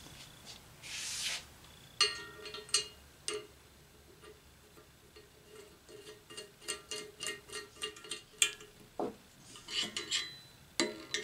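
Small metal parts and a hand tool clicking and tapping against a steel frame plate as a clevis is fitted and fastened. The light, irregular clicks come with a faint metallic ring.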